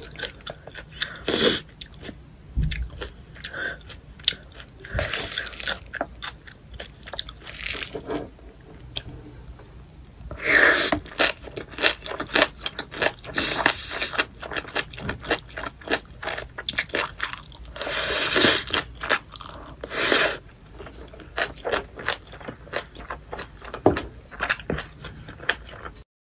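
Close-miked eating sounds of cockle bibimbap: wet chewing and crunching in quick, irregular bites, with several louder noisy stretches along the way.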